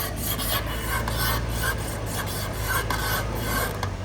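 Off-road vehicle's engine running with a steady low hum while its tyres crunch and scrabble over packed snow and ice, making an irregular scratchy, crackling noise.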